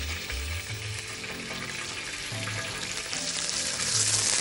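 Thin slices of pork sizzling in hot oil on a teppan griddle, a steady frying hiss that grows louder about three seconds in.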